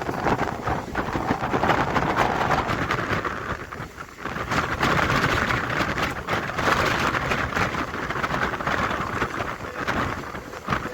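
Electric suburban local train running, heard from inside the coach: a steady rushing rumble of wheels on the track and air through the open windows, with many small rattles and clicks. It dips briefly about four seconds in.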